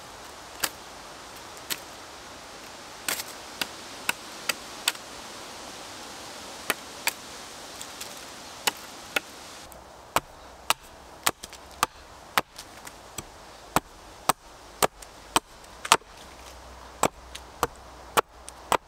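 Carbon-steel bushcraft knife chopping green chestnut wood. In the first half, scattered sharp knocks come as side shoots are struck off the pole. From about ten seconds in, steady chops come about two a second as the end of the pole is shaped on a wooden stump.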